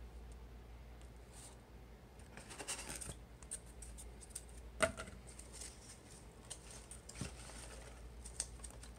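Styrofoam and cardboard packaging scraping and rustling as a foam insulation sheet is lifted out of a shipping box and hands reach in among styrofoam packing peanuts, with one sharp click about halfway through.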